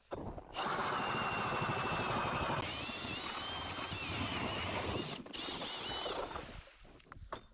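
Power ice auger boring through lake ice: the motor runs with a high whine over a rough grinding of the blades. The whine shifts up in pitch partway through, and the sound fades near the end.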